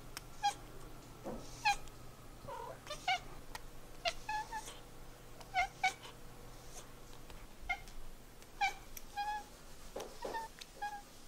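A tabby cat giving a string of short meows, about one a second.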